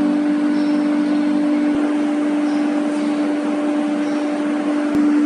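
Wood CNC router's spindle running steadily, a constant whine over an even rushing noise.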